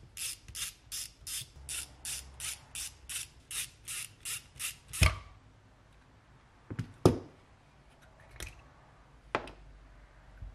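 Ratcheting screwdriver clicking steadily, about three clicks a second for some five seconds, as it backs out T20 Torx screws from a fuel pump housing. After that come a few sharp knocks as the tool and the metal pump parts are handled and set down.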